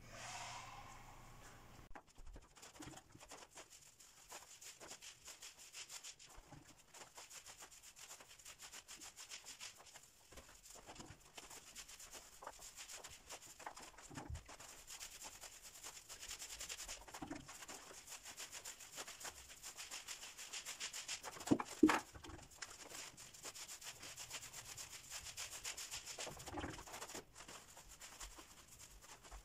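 Paint roller on an extension pole rolling water-based emulsion paint onto a wall: a faint, steady, sticky rasping hiss as the nap passes back and forth. One sharp knock about 22 seconds in.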